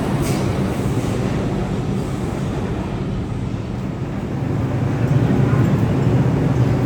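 R62A subway train running on the rails with a steady low rumble, growing louder about five seconds in.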